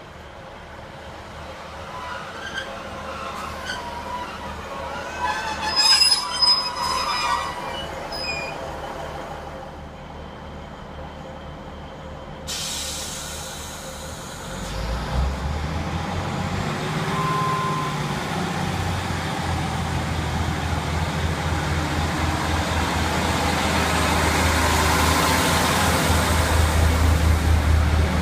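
Train at a station: high metallic wheel or brake squeal loudest about six seconds in, then a sudden hiss about twelve seconds in, followed by a heavy low rumble that grows steadily louder as a train runs in close by.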